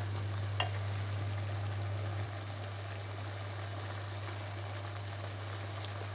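Sauce simmering in a cast-iron casserole on a gas hob: a soft, steady bubbling hiss, with one light click of the wooden spoon about half a second in. A steady low hum runs underneath and drops slightly about two seconds in.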